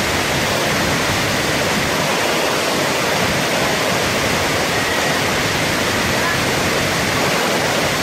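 Tall waterfall falling into its plunge pool, heard close to the base: a loud, steady rush of water without a break.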